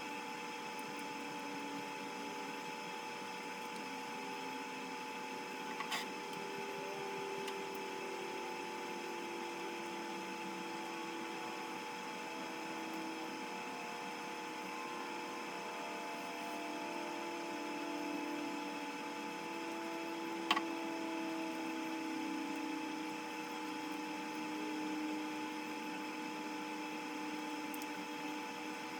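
A steady hum with a few wavering tones running under it, broken by two brief clicks about six seconds in and about twenty seconds in.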